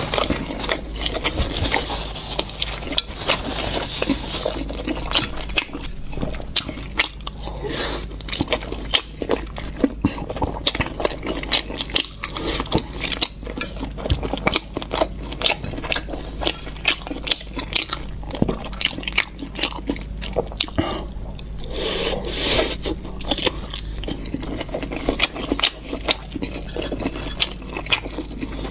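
Close-miked chewing of fried skewered food: wet mouth sounds with many quick irregular clicks and smacks, several a second.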